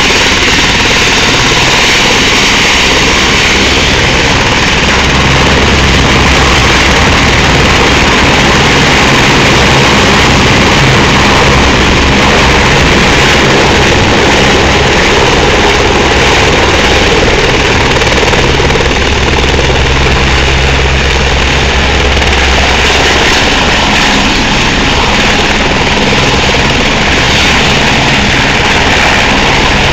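Squirrel rescue helicopter's turbine engine and main rotor running at high power as it lifts off and hovers low: a loud, steady turbine whine over a dense low beat from the rotor.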